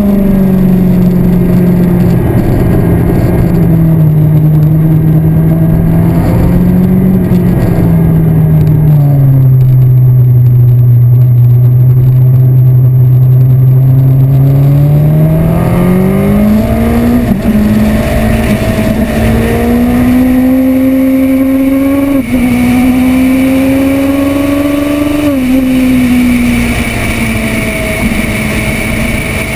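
Yamaha R1 inline-four sport bike engine heard from on board on a track lap. The engine note falls at first, holds low and steady through a long leaning corner, then climbs steadily as the bike accelerates out, with brief dips at two gear changes in the last third.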